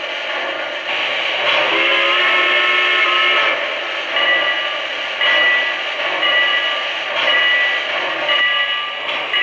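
Model steam locomotive's sound system with a steady steam hiss. A chime whistle sounds for about two seconds, beginning about a second and a half in. After that a bell rings about once a second.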